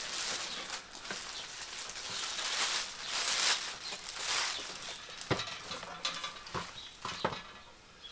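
Clear plastic packaging film crinkling and rustling in waves as it is pulled off a boxed gas table, with three short knocks in the second half.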